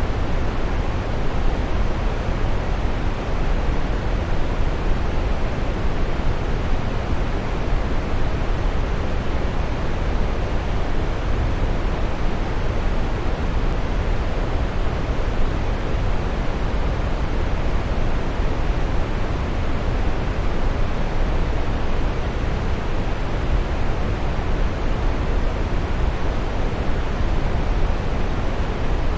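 Waterfall pouring: a steady, unchanging rush of falling water, strongest in the bass.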